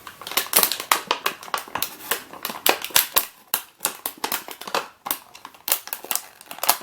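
Hands working at a puzzle's plastic and cardboard retail packaging, making a quick, irregular run of clicks, taps and crinkles.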